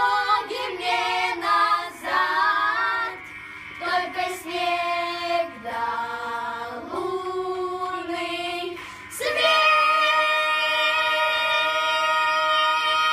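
Young boys singing together in Russian, short phrases rising and falling, then a long note held steadily and loudly from about nine seconds in.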